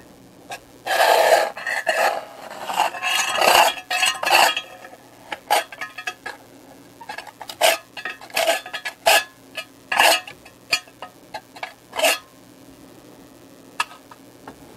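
Metal tool scraping and clinking inside a metal rocket-stove firebox as pellet ash is cleaned out: a few seconds of rough scraping, then a run of short sharp metal clinks and taps that die away near the end.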